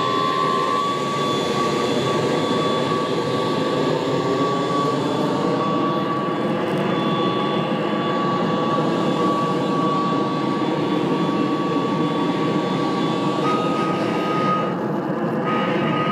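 Satellite radio signals played as sound: a steady rushing receiver noise with a thin whistling tone that steps up a little in pitch about thirteen seconds in. A fainter, higher tone sits above it in the first half.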